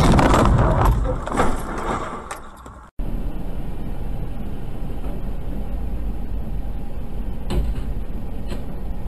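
Dashcam audio: a loud jumble of knocks and noise that fades out, then steady in-car road and engine noise. Two short knocks, about a second apart, come as a large metal panel from a truck's load tips over against a taxi.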